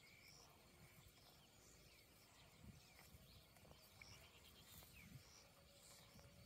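Near silence, with a water buffalo faintly tearing and chewing dry grass: a few soft crunches, a little louder about three and five seconds in, and faint high bird chirps and short trills here and there.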